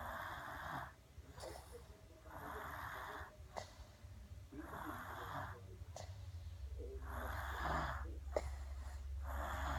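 A sleeping baby snoring: a rasping snore about every two and a half seconds, five in a row, over a low steady hum.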